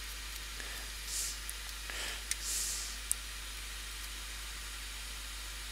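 Steady faint hiss with soft rustles and a couple of small sharp clicks, from copper tape being handled and snipped with side cutters.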